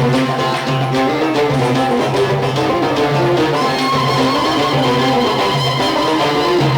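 Instrumental passage of an Algerian chaâbi song: plucked string instruments play a flowing melody over a steady low sustained note.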